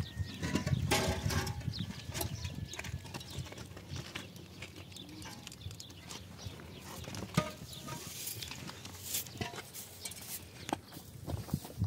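Hollow concrete blocks knocking and scraping as they are handled and stacked, with a few sharp knocks, and faint animal calls in the background.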